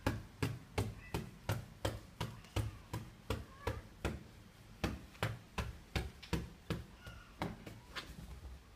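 A steady series of sharp clicks, each with a low knock in it, about two and a half a second. They fade and stop near the end.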